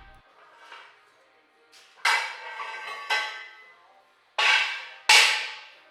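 Steel sawmill carriage posts clanking against metal four times, each hit ringing on briefly; the last is the loudest.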